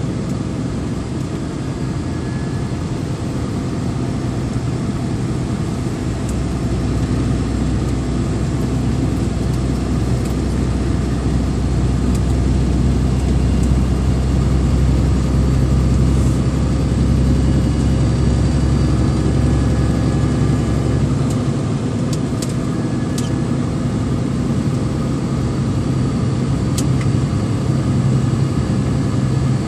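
Vehicle engine and road noise while driving up a mountain grade: a steady low engine drone that grows heavier for a stretch in the middle, with a few sharp clicks or rattles later on.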